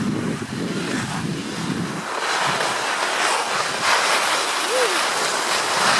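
Wind rushing over the microphone and skis sliding and scraping over hard-packed snow, the hiss swelling and fading from about two seconds in.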